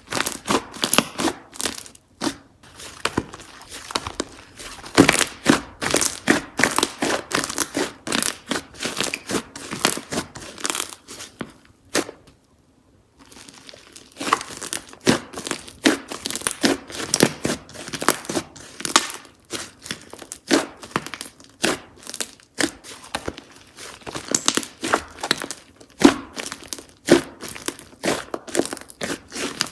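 Slime being squeezed, stretched and poked by hand, giving rapid clicking, crackling and popping sounds, with a brief pause a little before halfway.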